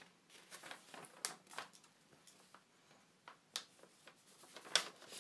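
Faint scattered clicks and light rustles, about half a dozen, from a cardboard box and plastic-wrapped packaging being handled.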